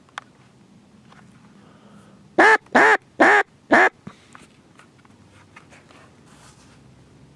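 Mallard duck call blown in four loud quacks about half a second apart, each rising and falling in pitch, calling to mallards circling overhead. A few faint, shorter quacks follow.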